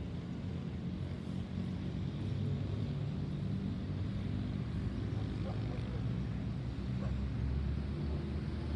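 Airbus A350-900 airliner passing high overhead, its twin Rolls-Royce Trent XWB turbofans making a steady low rumble that slowly grows a little louder.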